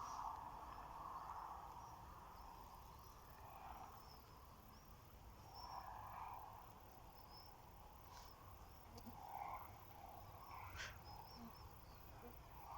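Very quiet outdoor ambience: soft swelling noise with small, faint high chirps scattered through, and one slightly sharper sound near the end.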